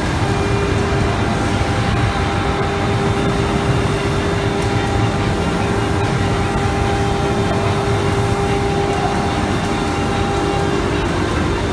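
CNC router spindle machining a wooden door panel: a steady whine over dense, continuous machine noise, part of the whine fading out shortly before the end.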